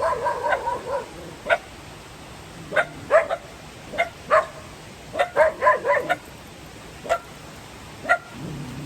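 A dog barking repeatedly: short, high-pitched barks in irregular bunches.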